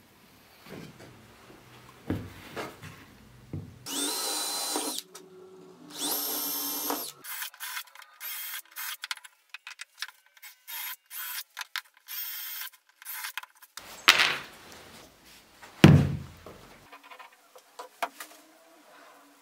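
Cordless drill motor running in two steady one-second runs, then in a string of short trigger bursts, driving screws into pine boards. Two loud knocks follow near the end.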